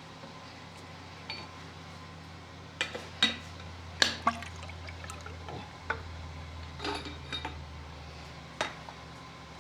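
Scattered sharp clinks and clicks of metal shock parts and tools being handled, the loudest about four seconds in, over a steady low hum.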